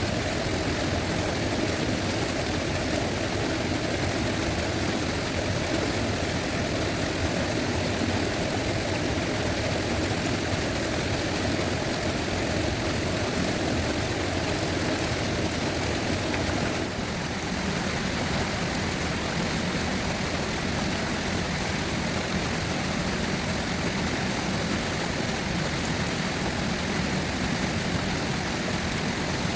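Fast river water rushing steadily over its bed. A little past halfway the rush changes character, deeper and hissier, as from a different spot along the river.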